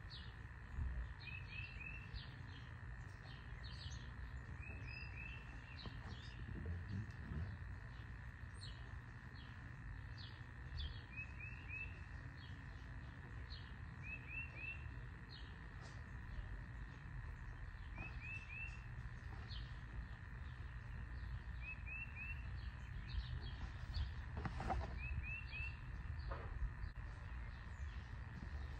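Birdsong outdoors: one bird repeats a short phrase of three quick chirps every three to four seconds, with other birds chirping in between, over a steady low background rumble. A few faint rustles near the end come from hands working soil in a plastic pot.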